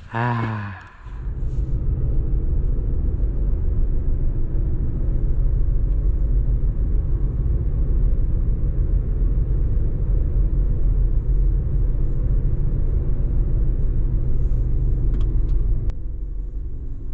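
Steady low vehicle rumble that starts about a second in, after a short vocal sound, and drops away near the end.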